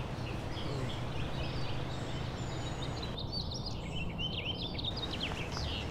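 Small birds chirping, a run of quick high chirps in the middle, over a steady low background rumble.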